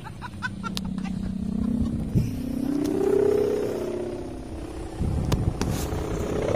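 Kite hummer (sendaren) droning on a flying kite. Its pitch wavers up and down, highest about three seconds in and again near the end, with a few light clicks early on.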